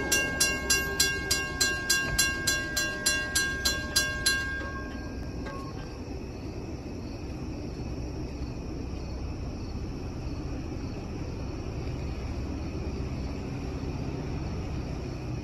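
Railroad crossing bell ringing at about three and a half strokes a second as the gates come down, stopping about four seconds in. After that a low, steady rumble continues.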